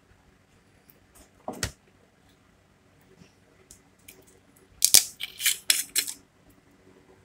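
A single knock, then about five seconds in a quick run of sharp clicks and cracks lasting about a second as the screw cap of a glass spirits bottle is twisted open.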